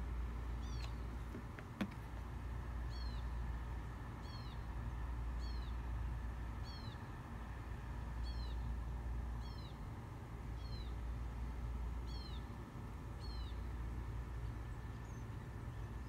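A bird repeating a short, high call about once a second, some ten times over, with a steady low rumble underneath. A single sharp click comes about two seconds in.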